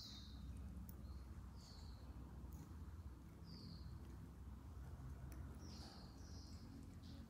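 Sunbird giving short, high chirps that fall in pitch, about one every second or two, the first the loudest, with a few faint clicks over a low steady hum.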